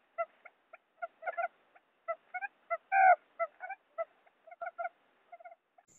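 Quail lure call, the female quail's call used to draw in wild quail. It is a quick series of short chirping notes in irregular clusters, with one louder, longer note about three seconds in.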